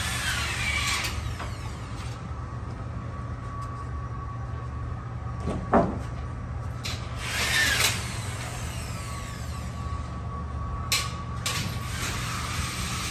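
Galvanised steel ceiling-grid channels scraping and sliding against each other as they are handled and fitted, in a few short bursts, with one sharp knock a little before halfway. A steady low hum runs underneath.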